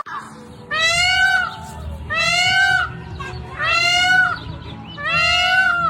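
Peacock calling four times, each a loud, drawn-out wailing cry with a slight rise and fall in pitch: the cat-like call of a peafowl. A low steady rumble runs underneath.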